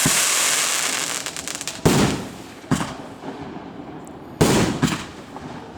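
Fireworks going off: a long crackling hiss from a burst dies away, then three more sharp bangs about two, two and a half and four and a half seconds in, each followed by crackling.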